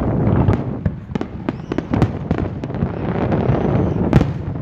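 Aerial fireworks display: a dense, unbroken run of booming and crackling shell bursts, the loudest bang about four seconds in.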